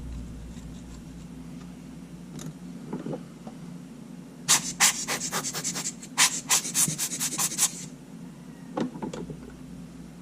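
Quick, short scrubbing strokes on the inside of a Sony A7 camera, most likely a small brush clearing out sand. There is a brief run of strokes about halfway through, then a faster run of about six strokes a second shortly after.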